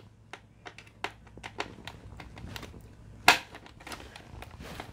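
Small scattered clicks and rattles of keyboard parts being handled during disassembly, with one sharper click about three seconds in.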